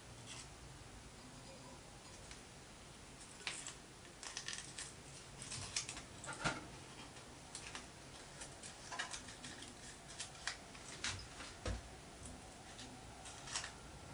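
Faint, irregular clicks and snips, starting about three and a half seconds in, as a thin strip of silver solder is handled and cut into small pieces for brazing a copper tube into a brass model boiler.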